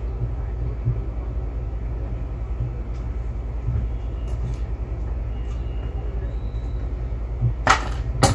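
A steady low rumble in the background, with a few faint ticks and a brief handling noise near the end as a spool of thread is set on the table.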